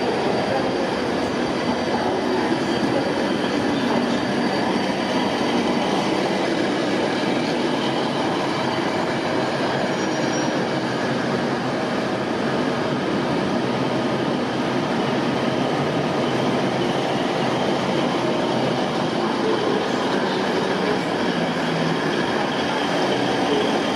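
Red regional electric or diesel multiple unit rolling slowly past at close range: steady running and wheel-on-rail noise, with a faint high-pitched wheel squeal as it takes the curving track.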